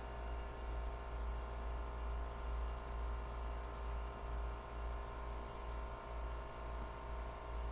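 Steady low electrical hum with a few faint steady tones and no distinct events: mains-type hum as room tone.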